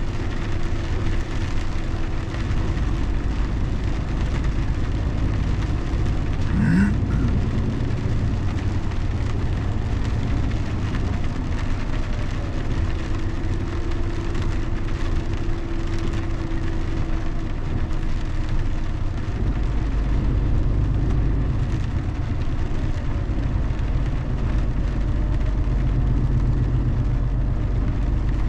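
Car driving steadily on the road, with a continuous low rumble of engine and tyre noise. A short rising squeak sounds about seven seconds in.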